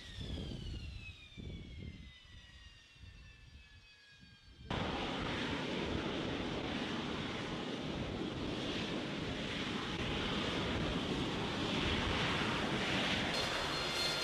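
Harrier jet engine whine falling steadily in pitch as the engine winds down. About five seconds in, an abrupt cut brings in a loud, steady jet roar, and a high whine joins it near the end.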